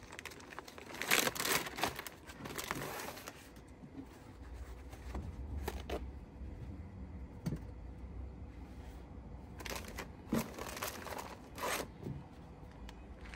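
Crinkly material being handled and torn in two bouts, one early and one near the end, with a few small clicks and quieter stretches in between.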